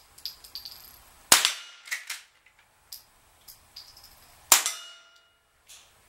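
Two sharp .22 rimfire shots from a Winchester Model 62 pump-action rifle, about three seconds apart, with lighter metallic clicks between them.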